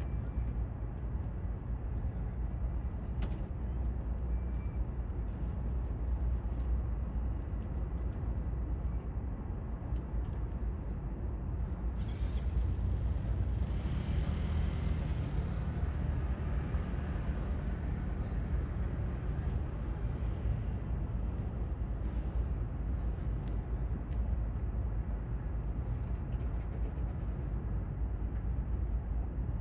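Steady low rumble of outdoor background noise, with a broader hiss swelling and fading about halfway through.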